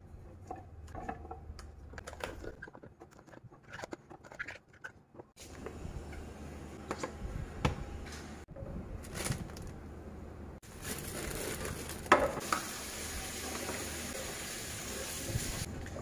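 Clear plastic food-storage containers and their lids knocking and clicking on a countertop as produce is packed into them, with scattered sharp taps. A steady hiss runs through the second half.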